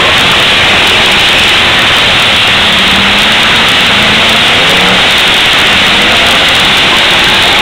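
Demolition derby cars' engines running and revving together, a loud, constant din with engine notes that rise and fall.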